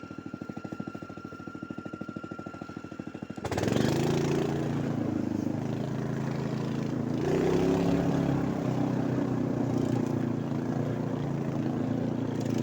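Motor vehicle engine running with a rapid, even putter and a thin steady whine, then about three and a half seconds in it jumps louder as the engine revs and pulls, its pitch rising and falling.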